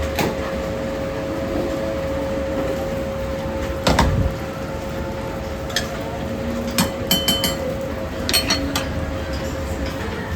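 Ramen stall kitchenware clinking and knocking: a few sharp clinks, one heavier knock about four seconds in and a quick run of ringing clinks near the end, over a steady hiss and a steady held tone.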